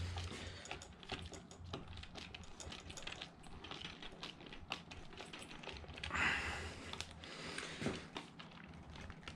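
Faint, irregular light clicking and ticking of small metal parts being handled: fingers working a freshly freed screw and tools against an aluminium RC chassis plate. A brief soft hiss comes about six seconds in.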